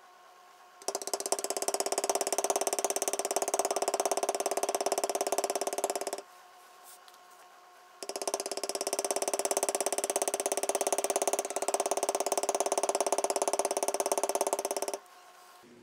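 Mallet rapidly tapping a metal leather-beveling stamp as it is walked along the swivel-knife cuts of a tooled leather knife sheath on a granite slab, in two long, even runs of quick strikes with a pause of about two seconds between them. The beveling presses down one side of each cut so the design stands out with depth.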